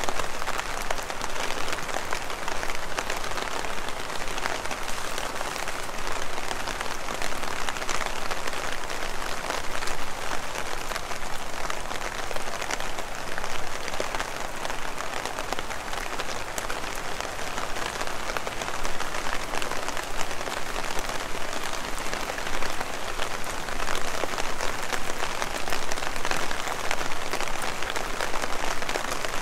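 Heavy rain falling steadily: an even hiss made of countless fine drop impacts, with no let-up.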